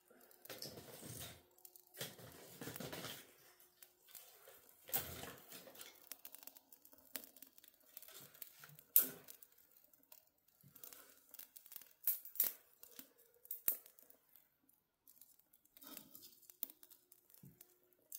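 Kindling catching in a wood stove: dry crackling and sharp snaps of burning twigs and sticks, with rustling as the wood is pushed into place by hand. A few soft gusts of breath are blown on the flames in the first five seconds.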